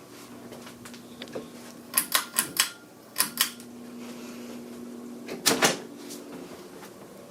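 Ceiling fan pull-chain switch clicking in quick runs, four clicks, then two, then two or three, over a steady electric hum from the fan that cuts out after the first run and returns with the second.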